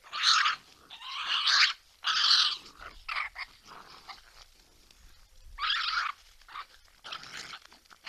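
Several raccoons fighting over food, heard in a played-back recording. They make a series of harsh, angry-sounding screeches and snarls, each about half a second long, with short pauses between them.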